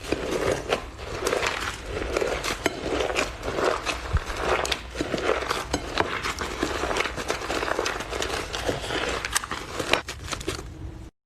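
Slime being squeezed and kneaded by hand: soft squelches in a steady rhythm, roughly two a second, laced with sharp sticky clicks and crackles. The sound cuts off abruptly near the end.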